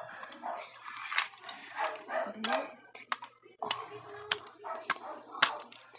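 Animal-like vocal noises mixed with sharp clicks of plastic toy figures knocking on a tile floor, the loudest click near the end.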